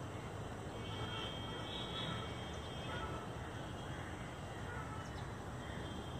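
Steady outdoor background rumble with birds calling, a few short high calls about one to two seconds in.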